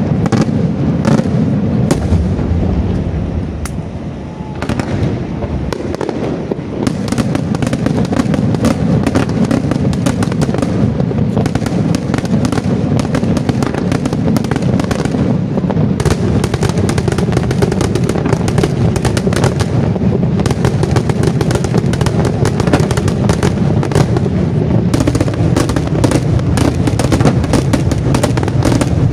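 Daytime fireworks display: a dense barrage of aerial shell and firecracker bangs. It eases briefly around four seconds in, then becomes a near-continuous rapid string of reports.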